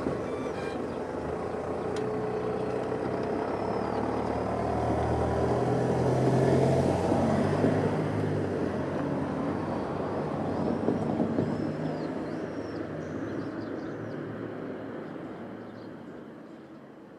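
Road vehicles driving over a railway level crossing: engine hum and tyre noise that swells about six seconds in and again around eleven seconds, then fades away.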